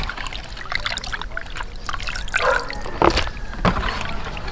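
Water splashing and trickling in a plastic tub as hands rub and rinse a mass of live bakasi eels, washing off their fishy smell. There are a few sharper splashes about three seconds in.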